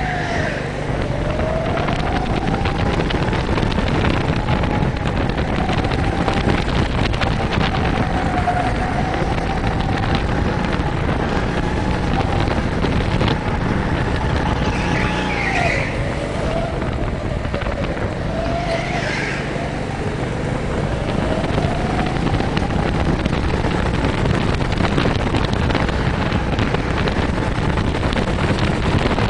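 Go-kart engine running hard from the driver's seat, its pitch climbing on the straights and dropping sharply several times as the kart slows for corners, then rising again.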